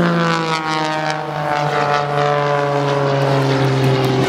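Extra 260 aerobatic monoplane's piston engine and propeller, loud and steady, its note falling smoothly in pitch as the plane pulls up into a vertical climb.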